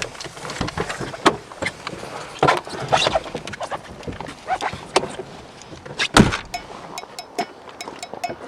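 Irregular knocks and clunks of people getting out of a car, with one loud thump about six seconds in, like a car door shutting. A quick, even ticking starts near the end.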